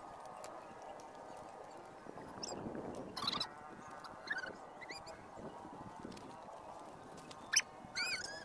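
Loose stones and rocks clacking and knocking as people turn them over and step across a rocky shore, with one sharper knock about three seconds in. A few short high-pitched calls come near the end.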